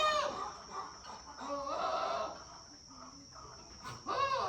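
Farm animal calls: a loud drawn-out call right at the start, a softer lower one about two seconds in, and another loud call near the end.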